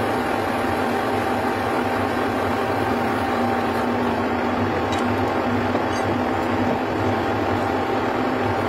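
Metal lathe running with its chuck spinning: a steady machine hum with a constant whine.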